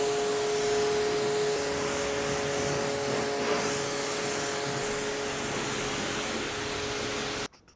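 Electric motor running with a steady whine over a loud hiss, cut off abruptly near the end.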